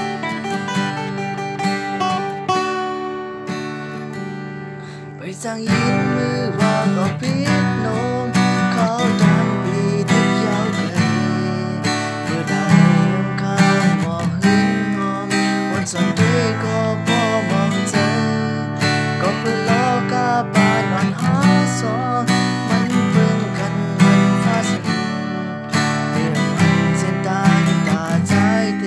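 Acoustic guitar strummed as a song accompaniment. It thins out and drops in level around four seconds in, then comes back fuller and louder from about five and a half seconds in.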